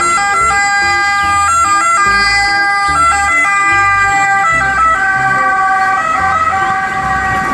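Italian ambulance's two-tone siren sounding as the ambulance drives past, its pitch switching back and forth between two notes.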